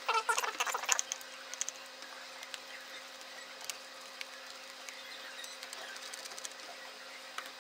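Laptop plastic parts and tools being handled during disassembly: a short burst of scraping and rattling in the first second, then scattered light clicks and ticks.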